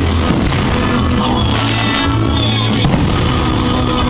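Loud rock-style music playing with a steady, dense sound, over a fireworks display.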